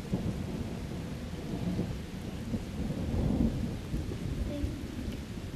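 Thunder rumbling low and crackling, swelling to its loudest about three seconds in.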